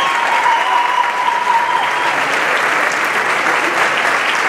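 Audience applauding steadily, with a thin steady tone underneath for the first two seconds.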